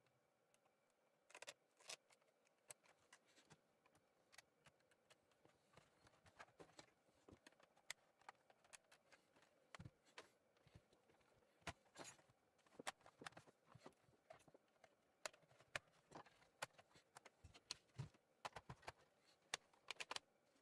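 Irregular light clicks, taps and knocks of a Sony Vaio laptop's plastic case and keyboard being handled during disassembly, busier in the second half.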